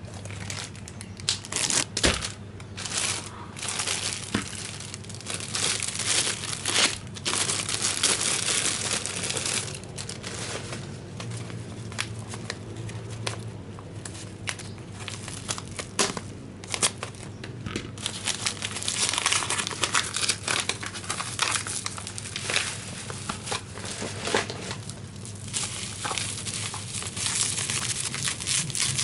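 Packaging being crinkled and torn open by hand, with irregular crackling and rustling that goes on in uneven spurts and sharp snaps.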